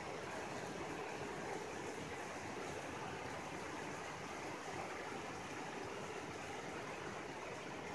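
Rain pouring down steadily on tiled roofs and the wet street, an even, constant hiss.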